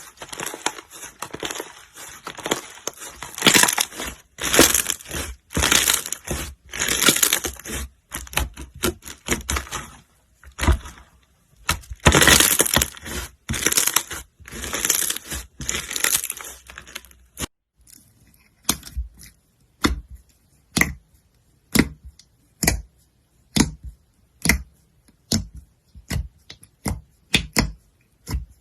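Slime being squeezed and pressed by hand, giving loud crackling, crunching squishes about once a second. About two thirds of the way in, these give way to short, sharp pops about twice a second.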